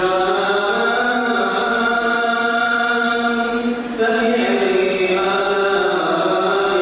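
A man's voice reciting the Quran in melodic, chanted tajweed, drawing out long held notes. One phrase ends about four seconds in and the next begins at once.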